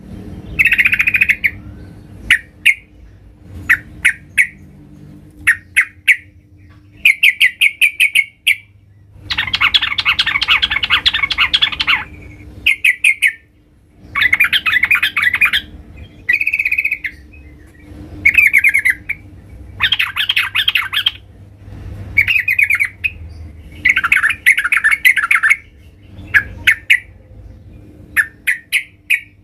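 Caged yellow-vented bulbul singing loudly in vigorous challenging song: short bursts of rapid, chattering notes, each about a second long, repeated with brief gaps, with one longer, harsher phrase about ten seconds in.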